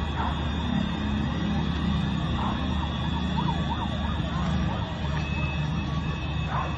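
Emergency siren wailing, in short rising-and-falling sweeps, over a steady low rumble of street noise.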